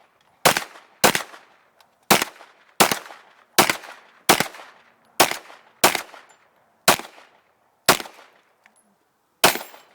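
Pistol shots fired one after another in a string, eleven in all at roughly one every 0.7 to 1 s, with a longer pause before the last. Each is a sharp crack with a short echo trailing off.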